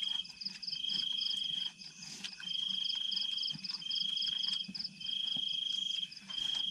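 Night insects trilling, likely crickets: one high, even-pitched trill repeats in spells of about a second with short gaps. A faster pulsing chirr runs continuously above it.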